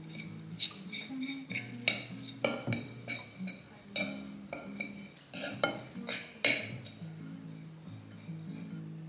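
Kitchen utensils clinking against a bowl and dishes, as when dumpling dough is being prepared, with several sharp clinks over soft background music.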